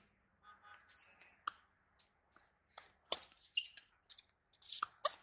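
Tennis balls struck by rackets and bouncing on a hard court during a rally: a series of sharp, separate pops and taps, some near and some distant.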